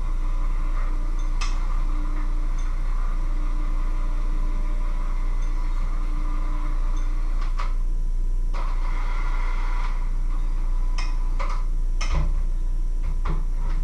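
Electric hand mixer running steadily with its beaters in a bowl, with a few sharp clinks near the end.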